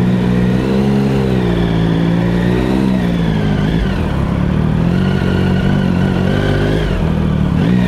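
Triumph Sprint ST1050's three-cylinder engine running at low revs, its pitch rising and falling gently with the throttle.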